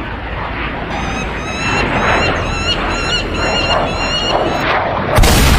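Birds giving a rapid series of short, high chirping calls over a steady rushing noise. Near the end comes a sudden loud rushing burst, the loudest sound.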